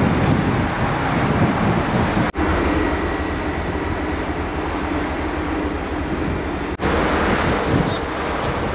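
Wind buffeting the microphone on a ferry's open deck, over a steady rush of sea. The sound drops out for an instant twice.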